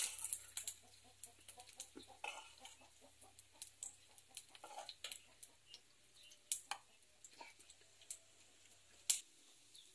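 A metal spoon knocking a few times against an enamel frying pan and a plastic blender jar, with sharp clinks about six and a half and nine seconds in. Faint animal calls sound in the background.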